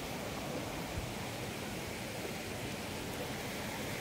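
Running river water rushing steadily, heard as an even, constant hiss with no distinct events.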